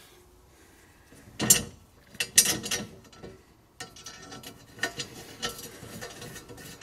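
Metal clanks and small clicks from handling a steel battery hold-down bracket on a battery tray and threading a nut onto its bolt by hand. There are a few sharp knocks about one and a half to two and a half seconds in, then lighter clicks.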